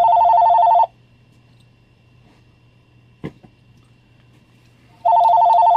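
Telephone ringing with a warbling two-tone electronic ring: one ring of about a second at the start, and another starting about five seconds in. A single short knock comes between the rings.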